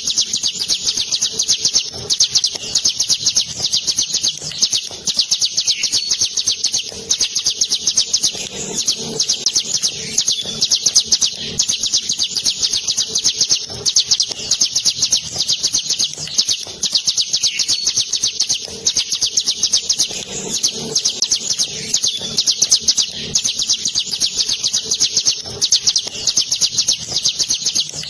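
Ciblek gunung, a prinia, singing a long, continuous rolling trill: rapid high notes repeated many times a second with hardly a break.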